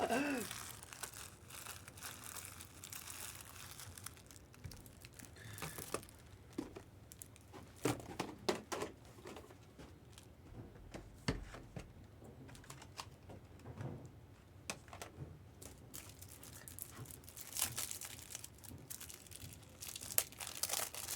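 Foil trading-card pack wrappers crinkling and tearing as packs are opened and handled, in scattered short crackles and clicks.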